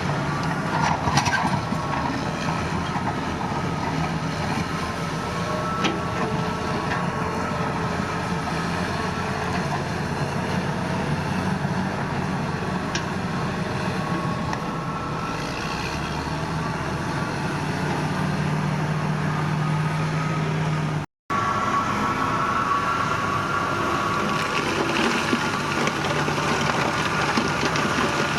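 Heavy construction machinery engine running steadily under load, with a low hum and a higher whine. The sound cuts out for a split second about three-quarters of the way through, then resumes.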